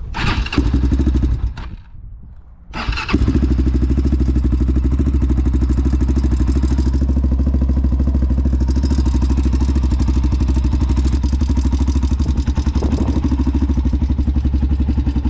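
Big-bored Honda 400EX quad's four-stroke single-cylinder engine: a short burst and a brief lull, then it catches about three seconds in and settles into a steady idle with a fast, even pulse.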